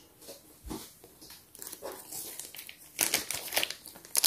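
Thin clear plastic packaging bag crinkling in the hands as it is pulled open, faint at first and louder from about three seconds in.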